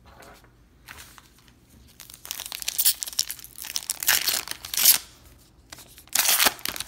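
A 2018 Bowman baseball card pack's wrapper being torn open by hand and crinkled: quiet small handling clicks at first, then loud, rough tearing and crinkling from about two seconds in, with another short burst near the end.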